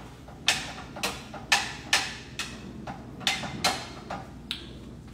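A utensil knocking against cookware on the stove: about ten sharp, ringing knocks, roughly two a second and slightly uneven.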